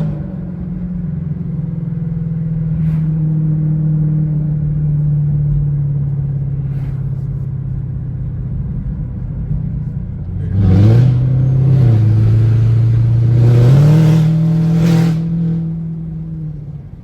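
Chevrolet Camaro ZL1's supercharged V8 exhaust while driving: a steady drone at cruise, then about ten seconds in the engine revs up hard under acceleration, drops in pitch at an upshift, climbs again and eases off near the end.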